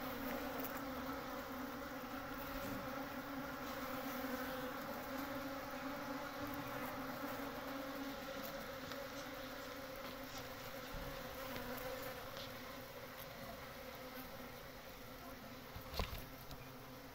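Steady buzzing hum of a honey bee colony, many bees together on the comb, easing off slightly toward the end, with one brief click near the end.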